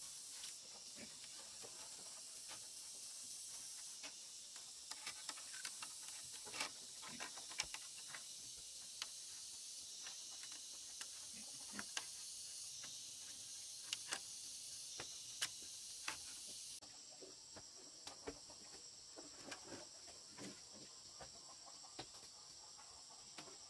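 Steady high-pitched drone of insects, with scattered light clicks and taps as wire is twisted to bind a bamboo pole to a log.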